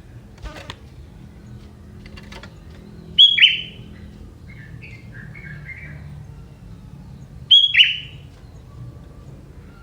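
Young wild sooty-headed bulbul calling: two loud, sharp notes about four seconds apart, each dropping in pitch, with softer chirps between.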